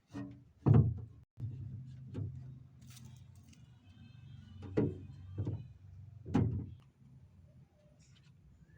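A series of hard knocks and thuds, about five over several seconds, as items are set into a refrigerator, with a low steady hum underneath.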